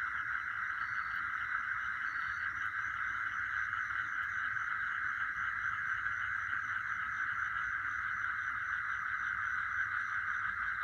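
Chorus of night insects: a dense, steady trilling with a quicker pulsed chirping higher up. A few short, evenly spaced high notes sound in the first couple of seconds.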